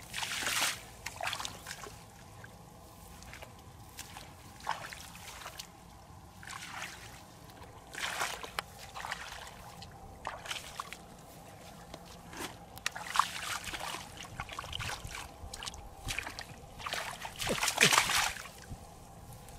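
Bare feet sloshing and splashing through shallow muddy water in uneven steps, then hands scooping and splashing in the water, with the loudest splashes near the end.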